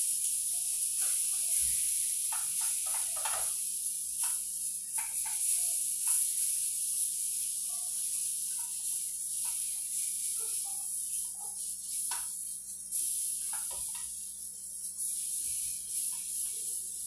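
Oat-and-banana pancake sizzling in hot oil in a frying pan, a steady high hiss, with scattered short scrapes and taps of a wooden spatula against the pan. The pancake is nearly done, frying to a crisp golden finish.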